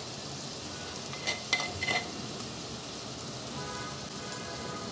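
Curry of dried kachki fish and vegetable stems sizzling steadily in a clay pot, its water cooked off so that it now fries in its own oil. A few light clicks and taps come about a second and a half in.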